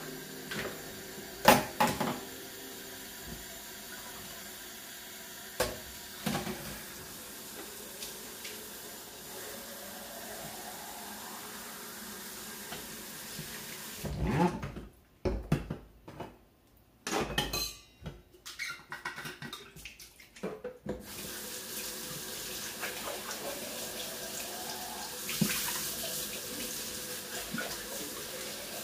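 Kitchen faucet running water into a container, the tone of the filling rising slowly. About halfway through the flow stops for several seconds of knocks and clinks of things being handled at the sink, then the tap runs again.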